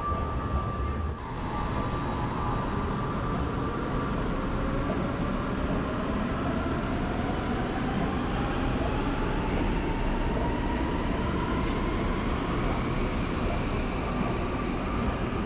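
Electric train in an underground station, a steady rumble with a faint whine that climbs steadily in pitch: the traction motors of a train accelerating away from the platform.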